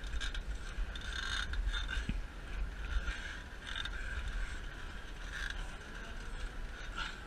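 Wind rumbling on a head-mounted action camera's microphone, with scraping and creaking from a climber moving over a metal-pipe and cargo-net obstacle.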